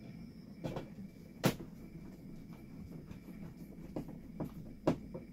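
Hand screwdriver driving screws through a plastic vent trim ring into the ceiling: scattered sharp clicks and knocks, the loudest about one and a half seconds in.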